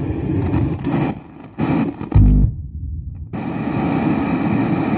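Speaker driven by a car audio amplifier giving a low rumbling drone that cuts out twice and comes back while the amplifier's crossover (LPF/HPF) switch is worked, with a loud low thump a little after two seconds. The cutting in and out comes from a faulty crossover switch.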